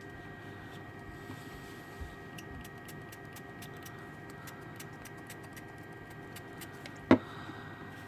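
Faint light clicks and ticks from handling graphics-card parts, with one sharp knock about seven seconds in, over a steady background hum.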